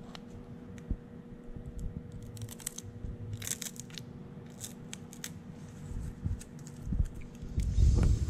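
Clear plastic decal transfer film crinkling and rustling as it is rubbed down with a card and peeled off a painted brake caliper, in scattered crackles. A faint steady hum runs underneath, and a louder low rumble comes near the end.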